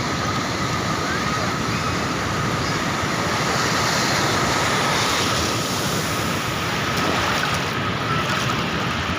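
Ocean surf breaking on a beach, a continuous rush of waves that swells a little about four seconds in.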